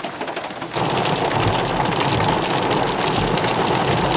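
Rain and hail pattering on grass, then from about a second in a sudden change to louder, denser drumming of rain and hail on a car's body, heard from inside the car.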